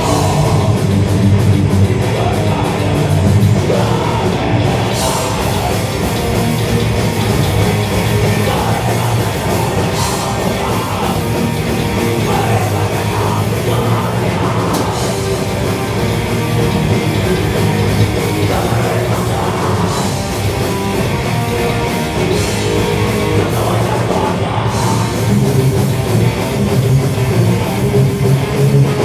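Live thrash metal band playing at full volume: distorted electric guitars, bass and drums, with a vocalist shouting and screaming into a microphone.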